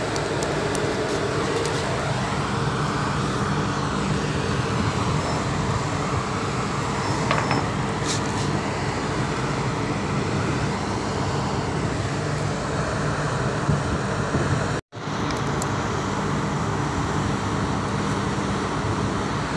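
Steady drone of a tanker ship's machinery with wind noise across the deck, a low even hum under a wide hiss. It cuts out for an instant about fifteen seconds in.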